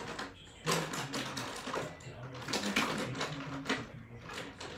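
Irregular clicking and clattering of makeup products being handled and sorted through, with a faint voice murmuring underneath.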